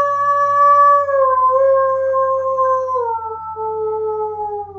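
A woman imitating a wolf howl with her voice: one long, loud howl held level, then dropping in pitch in steps toward the end.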